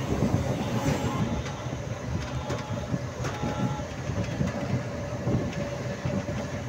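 Passenger train running along the track, heard from an open coach window: a steady rumble of wheels on rails with scattered knocks.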